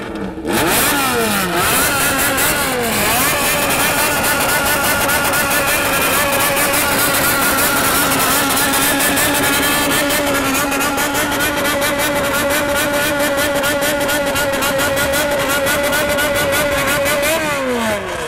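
Customised Honda motorcycle engine revved hard through its silencer-fitted exhaust. A few quick throttle blips rise and fall at first, then the revs are held high with a constant warble and pulse, bōsōzoku-style throttle work. The revs drop away to idle near the end.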